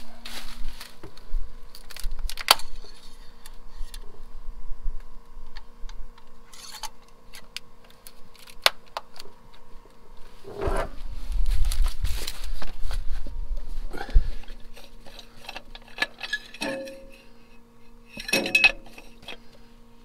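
Clicks, knocks and rustling of gloved hands and tools working around a tractor engine bay, with a denser stretch of rumbling and rustling about halfway through, over a steady faint hum.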